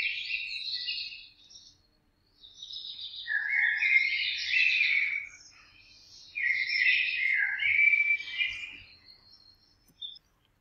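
Songbird singing three warbling phrases of quick chirping notes with short pauses between them, and a single brief note near the end.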